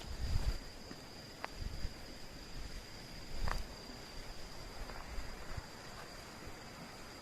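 An insect trilling one steady high-pitched note at night, with a few low thumps and two sharp clicks of handling noise, the loudest about 3.5 s in.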